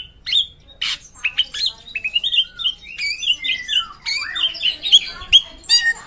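Caged drongo singing fast: an unbroken run of short sliding whistles and chirps, broken by a few harsh, scratchy notes.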